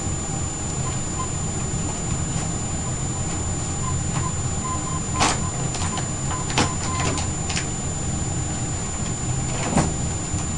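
Several light knocks and scrapes, the loudest about halfway and near the end, as cats climb on a plastic tray and a cat tree, over a steady low hum.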